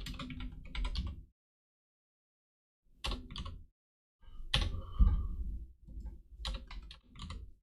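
Typing on a computer keyboard: three bursts of rapid keystrokes, the last and longest starting about four seconds in, with dead silence between them.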